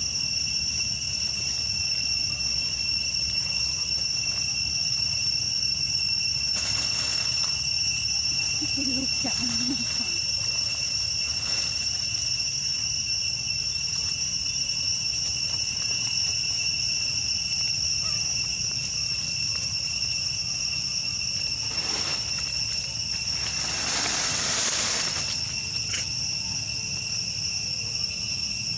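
Steady insect chorus, an even high-pitched drone held at two pitches, over a low rumble. A few short bursts of noise rise over it along the way.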